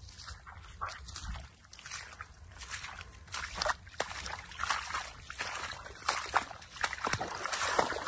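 Footsteps sloshing through shallow water and wet grass: an irregular run of splashes and rustles that grows louder about three seconds in.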